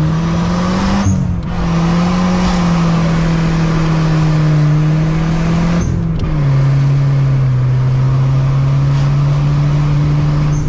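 Turbocharged 2.4-litre four-cylinder of a Dodge Neon SRT-4 heard from inside the cabin, pulling at high revs under hard acceleration. The engine note holds high and steady, broken briefly about a second in and again about six seconds in, as at gear changes, settling a little lower after the second break.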